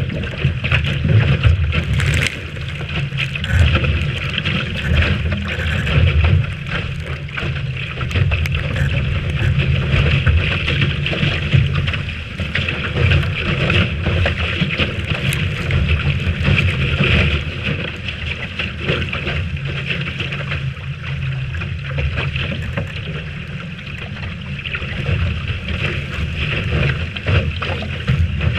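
Wind buffeting the microphone in gusts, over the steady hiss of water rushing past the hull of a Lightning sailboat under way in a strong breeze.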